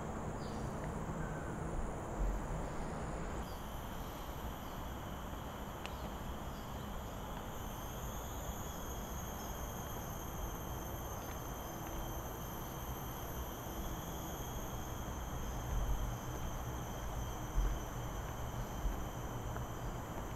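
Insects droning steadily in several high, thin tones that grow stronger a few seconds in, over a low outdoor rumble. A few dull low thumps come from the walker's footsteps and hands on the gimbal.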